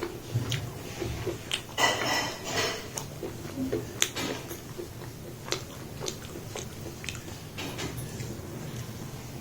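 Close-up eating sounds: sharp clicks and scrapes of a utensil against a plate, with chewing, and a louder noisy scrape about two seconds in.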